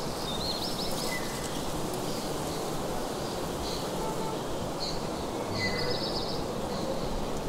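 Woodland ambience: a steady rushing hiss with small birds chirping high-pitched now and then, including a quick run of chirps about half a second in and another near six seconds.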